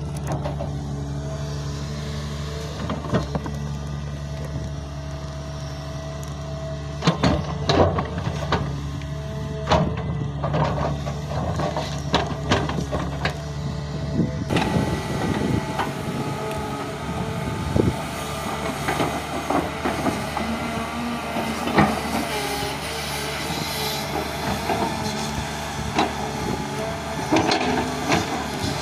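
Caterpillar 320D excavator's diesel engine running steadily under load while the bucket digs into soil, with sharp clanks and scrapes of metal and dirt, most clustered a quarter to two fifths of the way in. About halfway through, the sound changes abruptly to a brighter, busier rattle over the engine.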